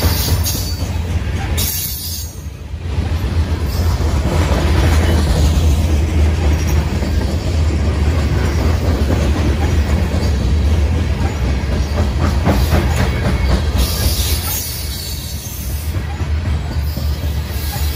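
Grain train's covered hopper cars rolling past close by: a steady low rumble of steel wheels on the rails with clatter and clicks as the trucks pass over the rail joints. The noise dips briefly about two seconds in, then carries on strongly.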